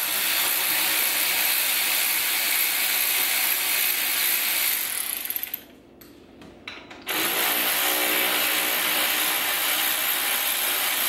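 Ratchet wrench turning out the two 7 mm bolts that hold the console trim, a steady rapid ratcheting that stops for about a second and a half midway and then starts again.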